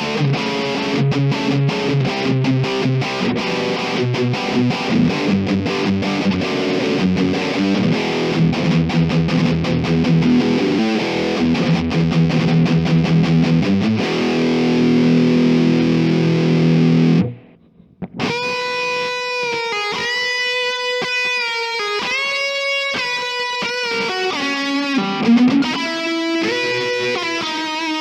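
Distorted electric guitar (Music Man Petrucci humbuckers) through a Kemper profile of a Fender Frontman Reverb amp at high gain with a lead 80s cabinet: a dense rhythm riff, a brief stop, then a single-note lead line with held, bending notes.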